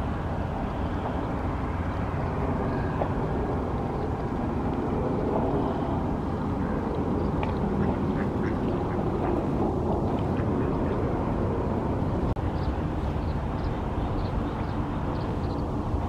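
Ducks quacking over a steady low rumble of wind and water.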